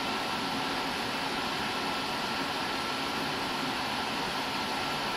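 Room tone: a steady, even hiss with a faint high steady whine running through it.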